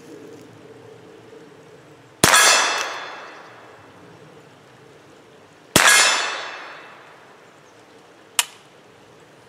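Two shots from a Mossberg Blaze .22 LR rifle, about three and a half seconds apart, each followed by a hit steel target ringing and fading over about a second and a half. A short sharp click near the end.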